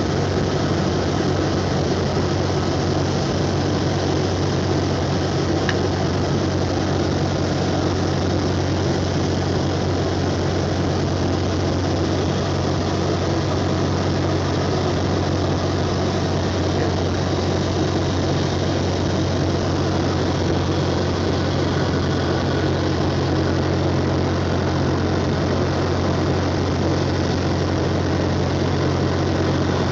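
Cessna 172's piston engine and propeller droning steadily in flight, heard inside the cabin. The drone holds an even low pitch and level throughout, with no change in power.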